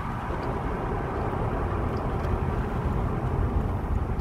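Car driving along a road, its engine and tyre noise making a steady rumble heard from inside the cabin.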